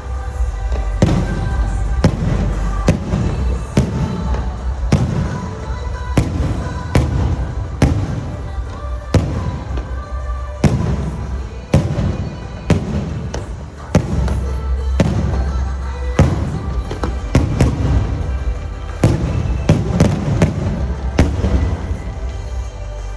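Aerial fireworks shells bursting in quick, irregular succession, about one or two booms a second, over music playing.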